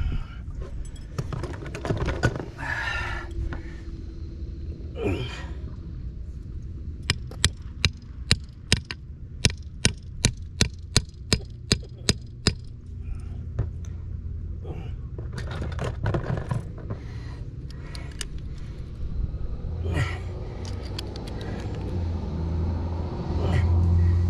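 Hand tools working a metal pipe fitting: scraping and knocks, then a run of about fifteen sharp clicks, two or three a second, lasting about five seconds. A low rumble builds near the end.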